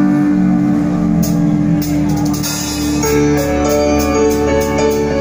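Live band playing: sustained keyboard chords, joined about three seconds in by a fast steady beat of high ticks, about four a second.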